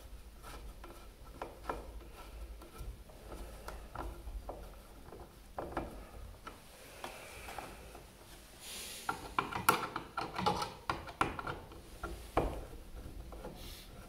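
Hand-screwdriver and handling noise: scattered light clicks, scrapes and rubbing as a GFCI receptacle is pressed into its electrical box and its mounting screws are turned. A quicker run of sharper clicks comes about nine to twelve seconds in.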